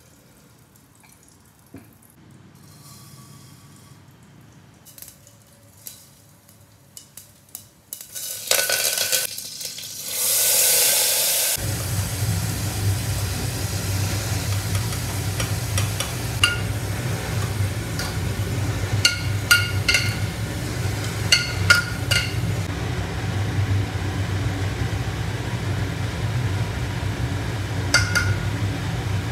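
Cooking in a steel pressure cooker pan on a gas stove: a few light clicks, then a loud hiss of food sizzling in hot ghee, followed by steady frying with a low hum underneath and sharp ringing clinks of a steel spoon against the pot.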